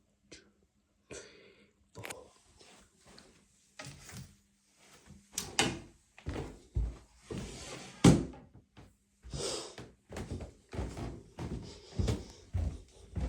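A run of irregular knocks and thumps, the loudest about eight seconds in.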